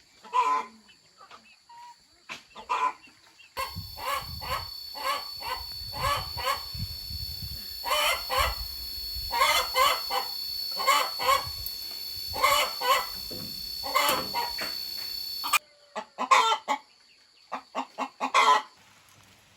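Chickens clucking in repeated short calls, in clusters throughout. A steady high-pitched tone sounds behind them through the middle part and stops suddenly.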